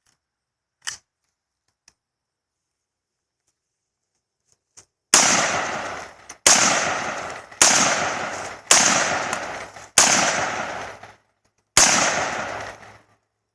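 A short click about a second in, then six single gunshots fired at a steady pace a little over a second apart, each with a long echoing tail.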